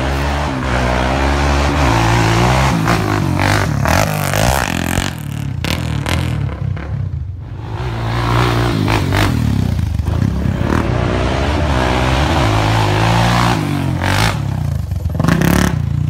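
ATV engines revving hard on a dirt trail, the pitch climbing and dropping with each burst of throttle. It eases off briefly about seven seconds in, then revs up again, loudest near the end.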